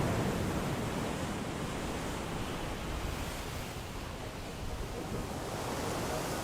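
Wind noise: a steady rushing hiss with a low rumble from wind buffeting the microphone.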